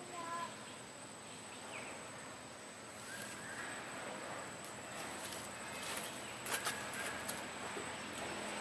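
Outdoor ambience: a steady high insect drone under a low hiss, with a few short bird chirps. Several sharp clicks come in the second half.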